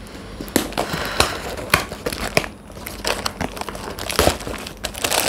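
A parcel's packaging being handled and opened by hand: crinkling and crackling with irregular sharp snaps.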